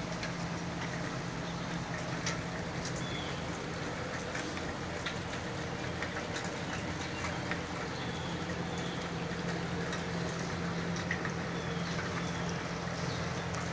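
Steady rain with muddy runoff water running across gravel and down a paved driveway, with scattered drips and a steady low hum underneath. A few faint, short bird chirps sound over it.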